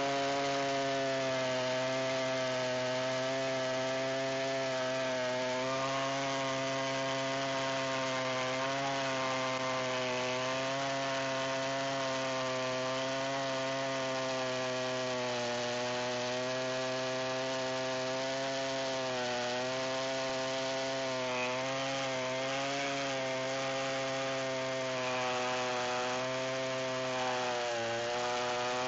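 Chainsaw running steadily under load as it rips lengthwise through a sweet gum log on a rail-guided chainsaw mill, its pitch wavering slightly as the cut goes on, with a brief dip near the end.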